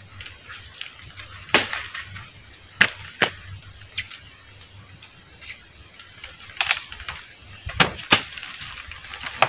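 Sharp snapping and cracking as banana flowers and bracts are broken off a Lakatan banana bunch by hand, about seven snaps at irregular intervals. A faint, rapidly repeated high pipping comes and goes in the background.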